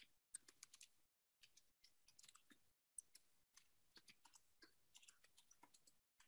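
Faint typing on a computer keyboard: quick, irregular keystroke clicks, broken by a few short gaps of dead silence.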